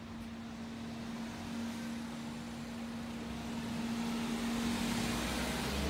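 Street ambience: a steady low hum under traffic noise that swells gradually toward the end, as of a vehicle approaching.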